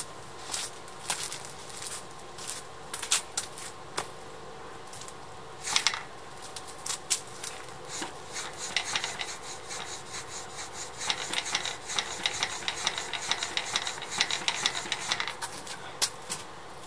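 Mountain bike's simple front suspension fork being pushed down and let back up again and again, its freshly greased inner tubes sliding in the seals with rubbing and clicking. The fork's friction is easing as the grease works in. Scattered clicks give way about halfway through to a quick, dense run of clicking that stops shortly before the end.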